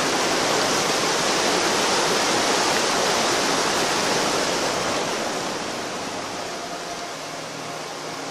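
Mountain river rushing in a steady, even wash of water noise that grows quieter about five seconds in.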